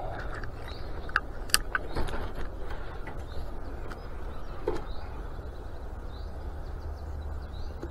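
A few sharp clicks and light knocks of fishing gear as a carp rod is set down in place, over a steady low rumble, with birds chirping faintly.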